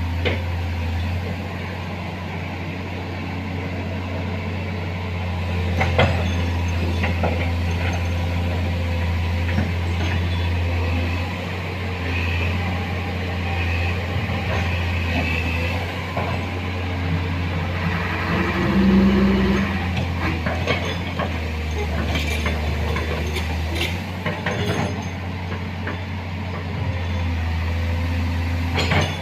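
Komatsu hydraulic excavator's diesel engine running steadily under changing load while it works, with a few sharp clanks scattered through.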